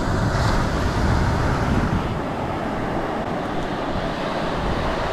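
Steady rush of wind and surf on a beach, with a heavy, uneven wind rumble on the microphone.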